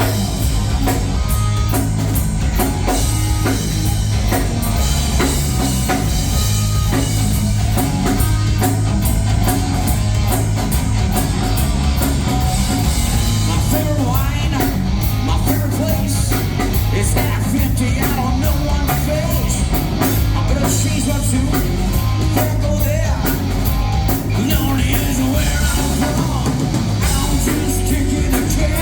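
Live rock band playing loudly, with a driving drum kit, bass and guitar and a singer's voice.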